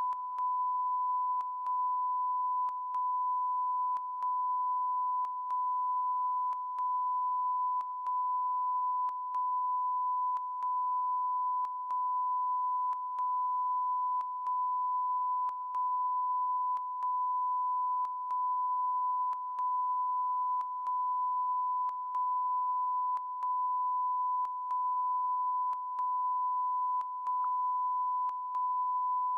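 A continuous electronic beep tone on a television news broadcast's audio: one steady high pitch broken by a short gap about every second and a quarter, running on without end.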